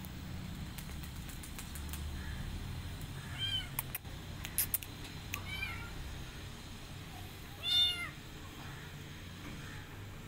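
Young kitten meowing three times, short high-pitched calls that rise and fall, about two seconds apart, the third the longest and loudest. A few sharp clicks come between the first two meows.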